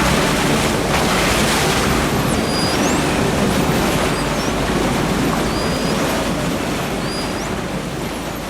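A steady, loud rushing noise, with faint high whistling sweeps falling in pitch every second or two, slowly easing in level towards the end.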